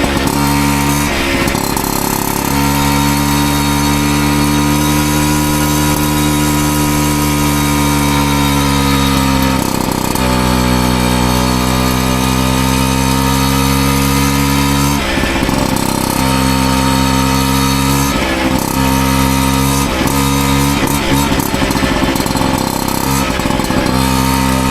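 Piaggio Ciao moped's 49cc two-stroke single running hard through an aftermarket Giannelli exhaust, held at steady high revs with slight rises and falls. The throttle is briefly shut about ten seconds in, twice around fifteen seconds, and several times in quick succession near the end.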